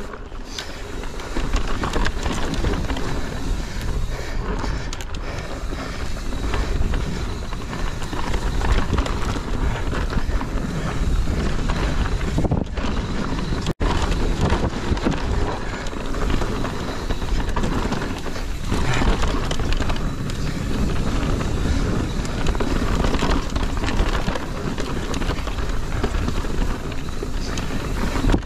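Mountain bike descending a dirt and root singletrack: a continuous rumble of tyres over the trail, with wind buffeting the microphone and many small rattles and knocks from the bike. The sound cuts out for an instant about halfway through.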